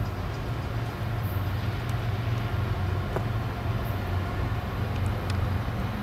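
Diesel freight train approaching, its GE locomotives (a CW44AC leading an ES44AH) giving a steady low engine rumble.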